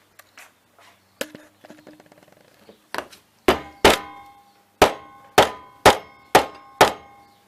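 Hammer blows on an old mobile phone. A few light taps come first, then from about halfway in seven hard strikes, roughly two a second, each with a short metallic ring.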